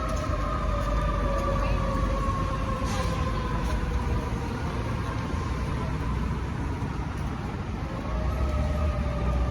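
Fire truck running under a siren whose tone falls slowly over several seconds, fades, then begins to climb again near the end, over a heavy engine rumble.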